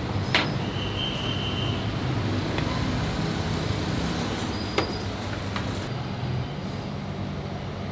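Busy street-kitchen background: a steady low rumble, with two sharp clinks of crockery about four and a half seconds apart and a brief high squeak between them near the start.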